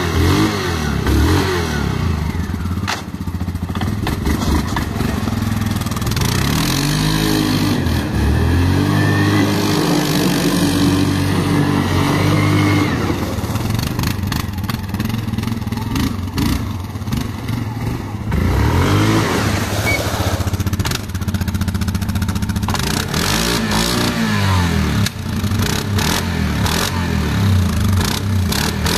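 Yamaha Grizzly 700 ATV's single-cylinder four-stroke engine running, blipped up and let fall back to idle several times. Long rev near the start, then shorter revs.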